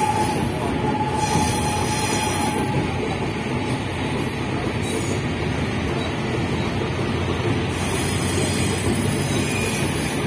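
Passenger train running at speed, heard from aboard: a steady, dense rumble of wheels on the rails and carriage noise, with a faint high tone that dies away in the first couple of seconds.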